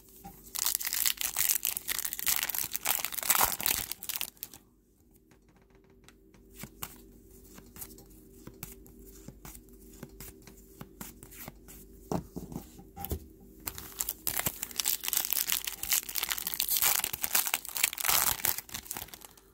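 Trading card pack wrappers torn open and crinkled, in the first four seconds and again from about 14 seconds in. In between, quieter scattered clicks and slides as a stack of cards is flipped through by hand.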